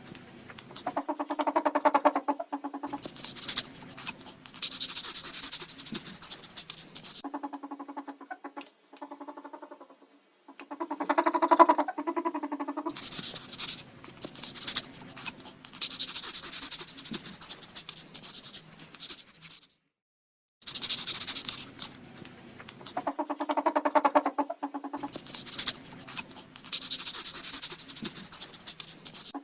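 Ferret sounds in a run of short bursts: pitched, buzzy calls alternate with hissy, scratchy noise. The same sequence starts over about 21 seconds in.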